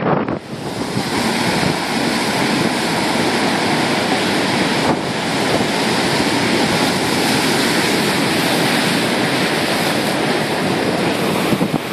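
Heavy storm surf breaking and churning against the pier's pilings: a loud, steady rush of foaming water.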